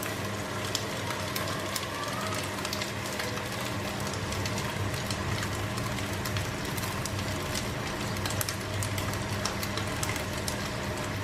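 Vegetables sizzling in a frying pan and tofu frying in oil in a second pan, a steady dense crackle, while a spatula stirs and scrapes through the vegetables. A steady low hum runs underneath.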